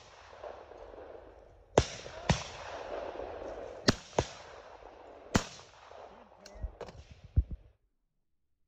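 Over-and-under shotgun firing at clay targets: a run of sharp reports, several in quick pairs less than half a second apart. The sound cuts off suddenly near the end.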